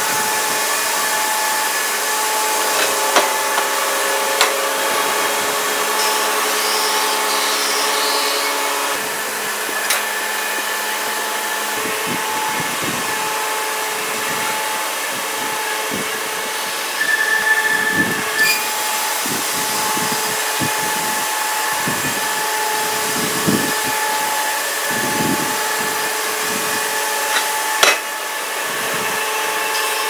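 Sawmill saw and log-handling machinery running: a steady mechanical noise with a few held tones, joined by scattered knocks and clunks from about the middle on.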